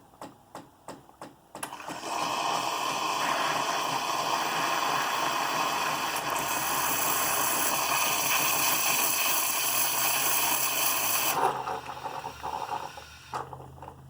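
Saeco Xelsis espresso machine running its milk-circuit cleaning cycle. Regular clicks about three a second from its pump for the first two seconds, then a loud steady hiss of hot water and steam rushing through the milk tube for about ten seconds, which cuts off suddenly and leaves a low hum.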